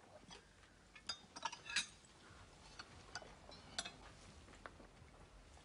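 Light, scattered clinks and taps of glassware and cutlery at a dinner table, a few small knocks at irregular intervals.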